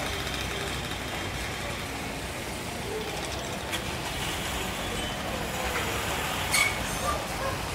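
Street traffic: motor vehicles, including a truck and a jeep, passing along the road below, with a short sharp click near the end.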